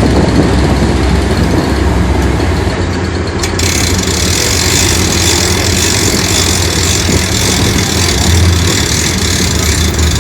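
A large engine idling steadily with a low rumble, and a steady hiss joining about a third of the way in.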